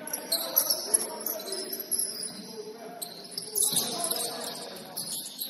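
Basketball shoes squeaking on a gym floor: many short, high-pitched squeals overlapping one another as players cut and stop.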